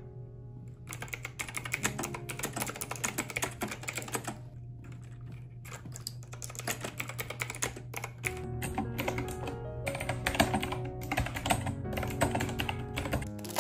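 Fast typing on a Knewkey Rymek retro mechanical keyboard with round typewriter-style keycaps: a rapid clatter of key clicks, pausing briefly about four and a half seconds in, over background music.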